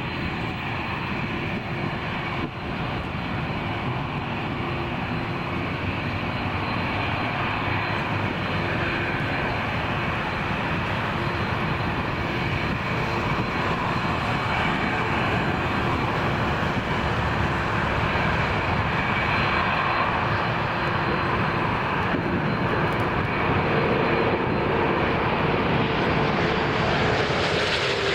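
Four jet engines of a Boeing 747 at takeoff thrust: a steady jet rush through the takeoff roll and climb-out, growing slowly louder, with a faint tone sliding down in pitch near the end.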